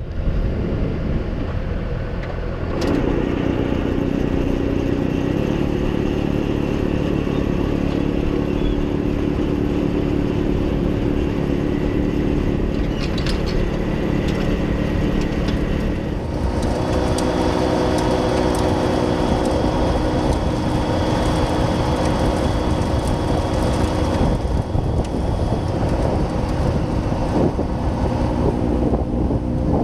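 John Deere 6110R tractor engine running steadily under load, heard from inside the cab, with the rear PTO snowblower working. The engine note steps up and grows fuller about three seconds in and again about halfway through.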